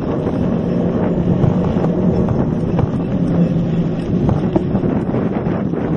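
Mountain bike rolling along a dirt trail, with wind rushing over the handlebar-mounted camera's microphone and small irregular knocks and rattles from the bike going over bumps.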